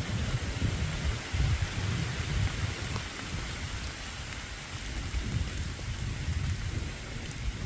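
Wind buffeting the microphone in irregular gusts, over a steady hiss.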